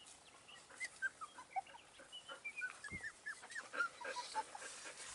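Four-week-old Texas Heeler puppies whimpering: many short, high-pitched squeaks and whines, one after another.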